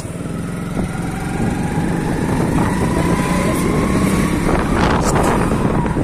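Motor vehicle running steadily, engine and road noise, with a faint whine that slowly rises in pitch in the middle of the stretch.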